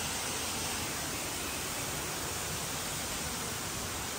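Steady rushing noise of falling water from a waterfall, even and unbroken.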